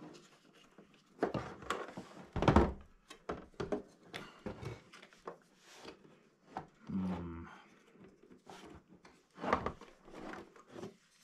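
Handling noise from a G&G PRK9 airsoft gun as a battery is worked into it under its lifted top cover: irregular clicks, knocks and rubbing of plastic and metal parts. The loudest knock comes about two and a half seconds in.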